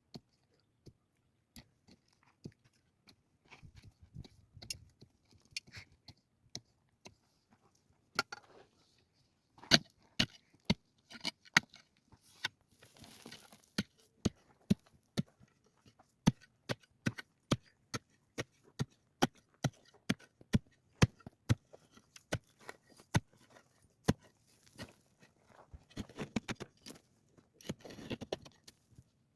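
A run of short sharp knocks, a few scattered at first and then coming about twice a second from about ten seconds in, with a stretch of rustling near the end.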